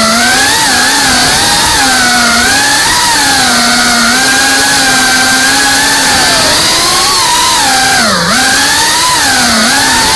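FPV drone's brushless motors whining, the pitch rising and falling constantly with throttle changes, with a brief sharp drop in pitch about eight seconds in.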